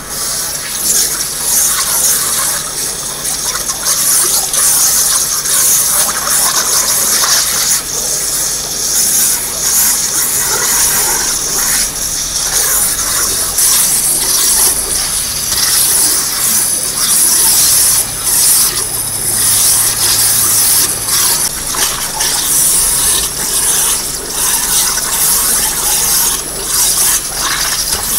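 CNC waterjet cutter slicing through thin sheet metal: a loud, steady high-pressure hiss and spray of water with a harsh, high-pitched edge, wavering a little as the head travels along the cut.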